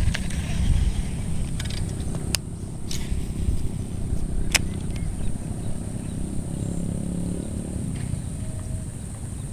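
Wind buffeting the microphone in a steady low rumble, with a few sharp clicks as a baitcasting reel and lure are handled, about two and a half, three and four and a half seconds in.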